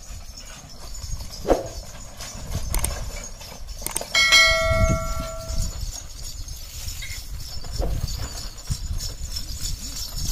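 Hooves of a pair of bullocks and the rumble of their wooden-wheeled cart on a dirt track, coming closer. A bell rings once for about a second and a half, about four seconds in.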